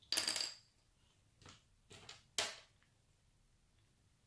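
Four short rustling handling noises in about three seconds, the first the loudest, made by small objects being moved about.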